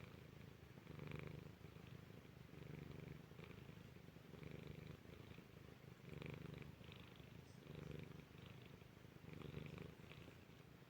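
Domestic cat purring quietly and steadily, the purr swelling and easing with each breath in and out, about every second and a half.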